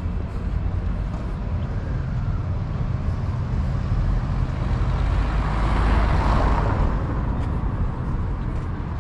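Street traffic with a steady low rumble; a motor vehicle passes close by, rising to its loudest about six seconds in and then fading.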